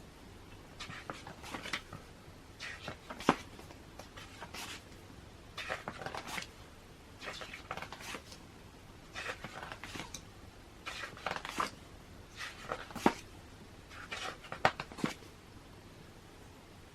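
Glossy pages of a hardcover magazine being turned by hand: a short papery rustle, sometimes ending in a sharp flap or click, about every second.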